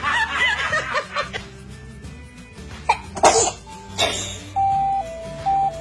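A baby sneezes sharply twice in quick succession, about three and four seconds in. Background music with a simple melody of steady notes plays underneath.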